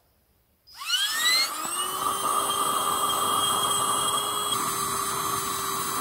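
Small handheld electric air pump switching on just under a second in, its motor whine rising as it spins up, then running steadily as it inflates a sleeping mat through the valve.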